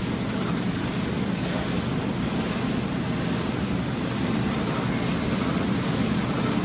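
Steady background hum and noise, with a low droning hum throughout and a brief hiss about a second and a half in.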